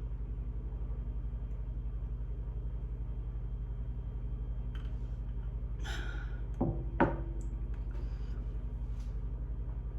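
Steady low hum with a fast, even pulse, broken about seven seconds in by two quick knocks, the second louder.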